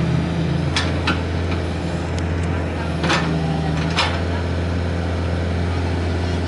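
Komatsu PC45MR mini excavator's diesel engine running steadily under load while digging a trench, with four short sharp knocks as the bucket and arm work the soil.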